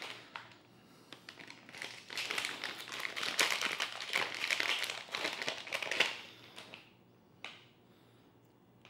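Clear plastic packaging bag crinkling in the hands as it is opened and handled, then a single light tap near the end.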